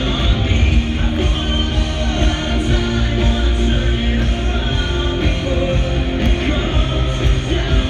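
Loud live rock band playing with a male lead vocalist singing into a handheld microphone, a heavy bass and drum low end under the voice.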